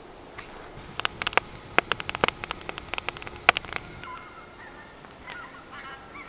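A quick run of sharp, irregular cracks of wood for about three seconds, followed by faint honking calls of geese near the end.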